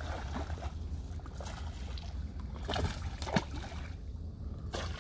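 A hooked fish splashing and thrashing at the water's surface as it is reeled in. The splashes come in several bursts, the loudest about three seconds in, over a steady low rumble.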